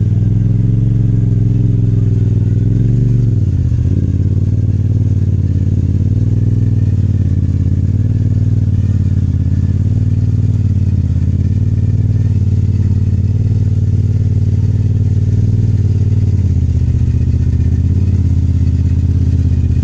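Side-by-side UTV engine idling steadily, its pitch dipping briefly a few seconds in.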